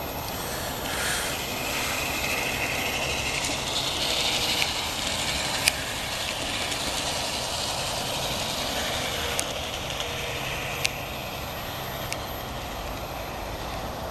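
Aristocraft G-scale Eggliner motor car running along outdoor garden track and pulling a Brite-Blok track cleaner car: a steady rolling rush with a sharp click every second or two.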